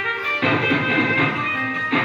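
Instrumental music led by plucked strings, guitar-like, with a bass line under it.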